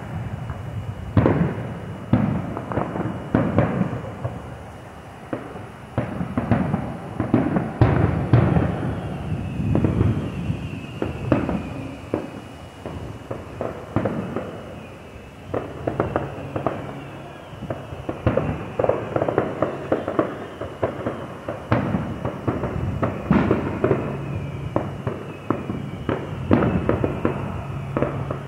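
Aerial fireworks display: shells bursting in quick, irregular succession, bangs overlapping one another throughout.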